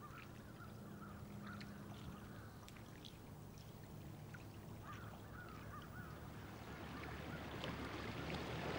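Quiet river ambience with faint, scattered bird calls. A motorboat's engine hum grows steadily louder toward the end as the boat approaches.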